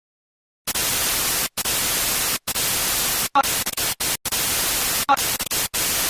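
Loud static hiss, like white noise from a dead channel, starting about half a second in after silence and cutting out abruptly in short gaps over and over, with two brief tonal blips in the second half.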